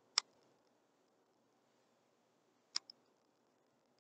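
Sharp, isolated clicks from the pointing device used to write on the slide: one just after the start, then a louder and a softer click close together a little under three seconds in, over faint room hiss.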